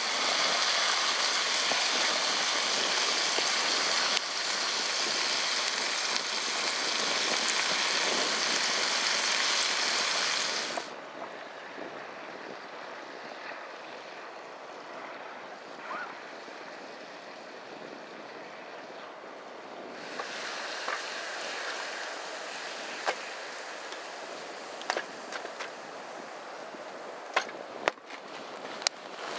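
Rushing stream water, a steady hiss, changing abruptly between shots: loud and bright at first, duller and quieter about eleven seconds in, brighter again about twenty seconds in. Scattered sharp clicks and cracks come over the last several seconds.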